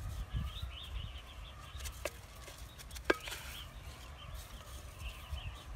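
Birds chirping in the background, with two sharp taps about two and three seconds in.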